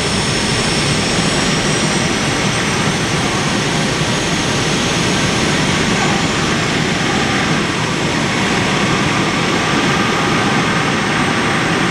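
Turbine engines of a multi-engine modified pulling tractor running steadily at idle: a loud, even jet-like roar with a high whine over it.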